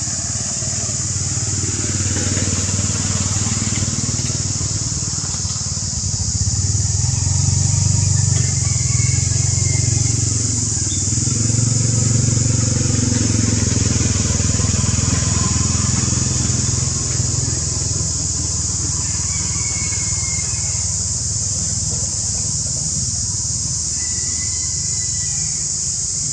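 Low engine rumble of a motor vehicle going by, swelling over several seconds and then easing off, over a steady high-pitched hiss.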